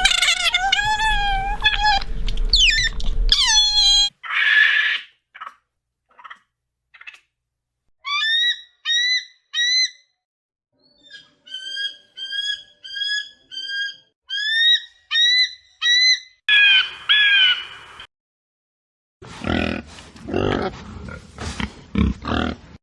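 A succession of different animal calls: long gliding calls at first, then runs of short rising chirp-like calls repeated about once a second, and near the end a run of low grunting.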